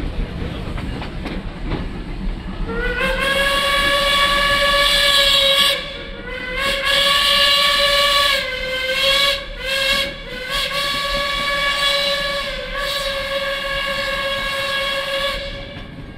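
Steam locomotive whistle sounding the grade-crossing signal over the train's rumble on the rails: two long blasts, a short one, then a final long blast held about five seconds.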